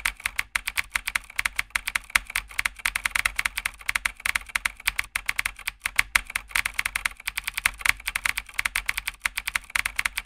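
Computer keyboard typing: fast, irregular key clicks, many a second, without a pause.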